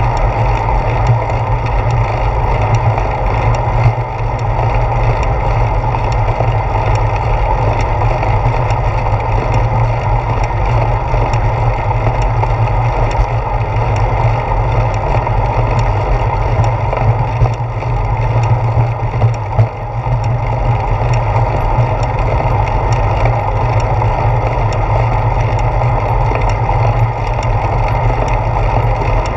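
Steady rumble of wind and road vibration picked up by a handlebar-mounted GoPro Hero 4 on a moving bicycle, with many small clicks and rattles as the mount is shaken by the road surface.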